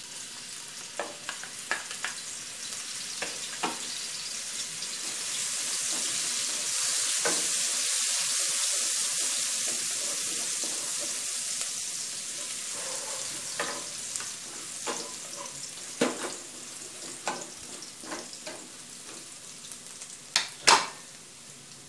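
Minced garlic sizzling in hot oil in a non-stick wok, stirred with a wooden spatula that knocks and scrapes against the pan now and then. The sizzle is strongest several seconds in, and the loudest knocks come near the end.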